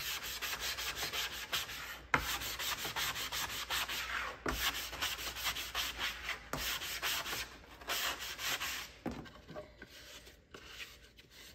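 Hand-sanding the painted edge of a round wooden tray with a sanding block: quick back-and-forth rubbing strokes, with a few louder knocks along the way. The sanding dies away near the end.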